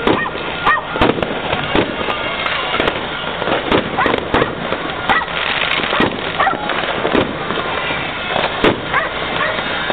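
Aerial fireworks going off in a continuous display: irregular sharp bangs, several a second, over a steady crackling and fizzing.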